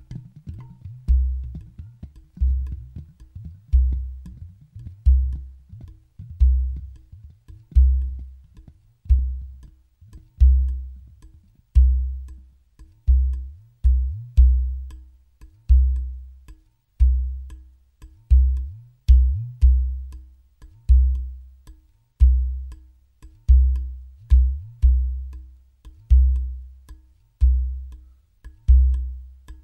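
Udu clay pot drums played in interlocking rhythms: deep bass tones about once a second, some in quick pairs, each dying away, with a few that bend upward in pitch. A higher pot note and light finger taps sound between them.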